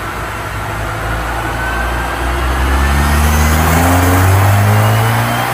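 Hyundai Avante AD's ECU-tuned engine pulling hard under acceleration, its pitch climbing steadily over a few seconds and easing near the end.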